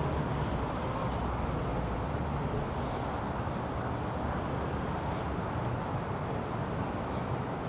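Steady city street noise: a low traffic rumble with no single event standing out.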